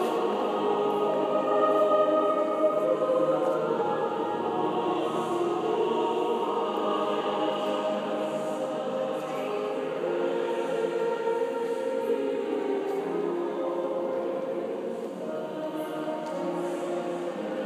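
A choir singing long, held, overlapping notes that shift slowly in harmony.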